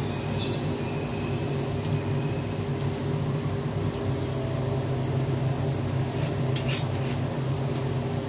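Steady low electric hum of a running kitchen appliance. A short glass clink comes about six and a half seconds in as the rice wine bottle is handled.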